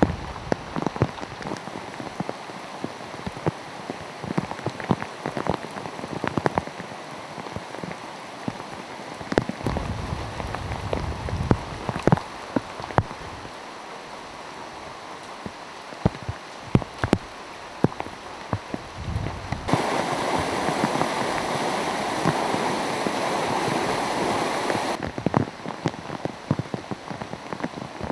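Hurricane rain falling steadily, with many sharp separate drop and drip impacts over a constant wash of noise. For about five seconds in the second half a louder, even rush of rain comes in, then stops suddenly.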